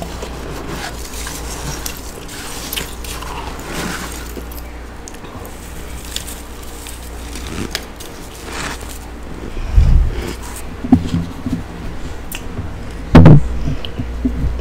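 Close-miked crackling and scraping of soft freezer frost as a gloved hand digs it out of a chest freezer and it is eaten, over a steady low hum. Loud crunching knocks come about ten seconds in and, loudest, near the end as a handful of frost is held against the microphone.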